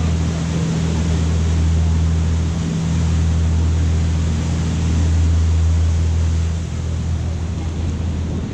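Canal tour boat's engine running with a steady low drone under a stone bridge arch. About seven seconds in the drone drops away as the boat comes out from under the bridge, leaving a hiss of water and wind.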